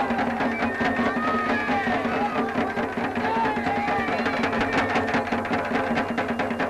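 Procession music: drums beaten in a fast, dense rhythm under a wavering, gliding high melody line.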